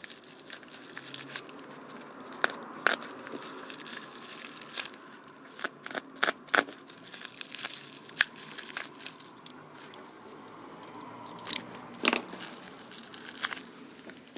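Plastic bubble wrap being unwrapped by hand, crinkling, with scattered sharp crackles and tearing as it is pulled apart.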